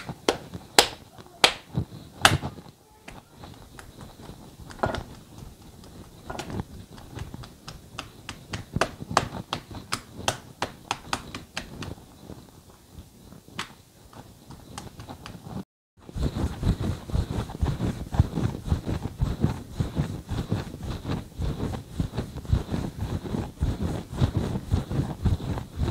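Bare hands slapping a ball of paratha dough between the palms in sharp claps, then softer pats and taps as the dough is pressed flat on a countertop. About two-thirds of the way in, after a brief gap, a wooden rolling pin rolls the dough on the counter: a steady low rolling sound with many small knocks.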